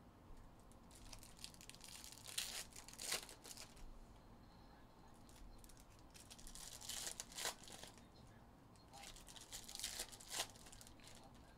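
Foil wrappers of Topps Chrome baseball card packs being torn open and crinkled by hand, in several short bursts.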